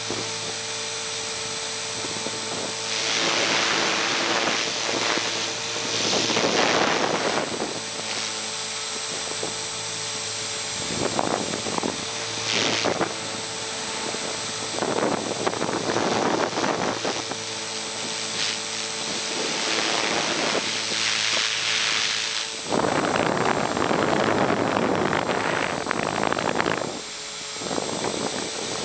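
Align T-Rex 450 Sport electric RC helicopter heard from its own onboard camera: the steady whine of the motor and spinning rotor. Several rushes of wind noise on the microphone swell and fade over it.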